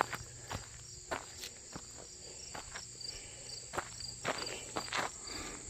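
Irregular footsteps on stone and gravel fill, with insects chirping steadily in a quick pulsing rhythm behind them.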